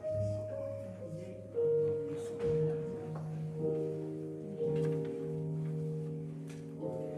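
Slow instrumental music of long held chords that change about once a second.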